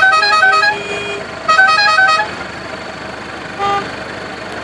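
Musical vehicle horn playing a quick tune of rapidly alternating notes, in two short bursts, then a single short toot about two-thirds of the way through.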